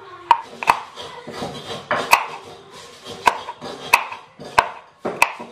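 Kitchen knife chopping shallots and red chillies on a wooden cutting board, about seven sharp, irregularly spaced knocks of the blade against the board.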